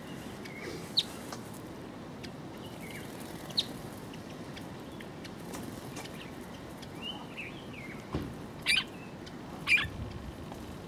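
Small songbirds chirping while feeding: scattered short, sharp chirps and a few brief curving calls, with two louder sharp calls close together near the end, over a steady background hiss.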